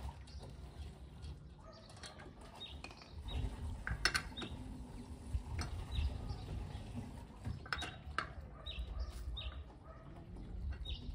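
Wheel spanner clicking and knocking on a car's wheel bolts as they are turned on the front wheel: scattered metallic clicks, the loudest about four seconds in, among short high chirps.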